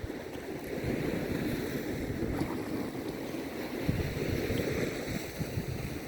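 Beach ambience: surf washing on the shore, with wind buffeting the microphone in a rough, uneven low rumble.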